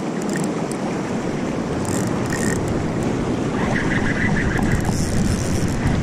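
Steady rushing of river water, with a few faint clicks as a spinning reel is wound in on a hooked fish.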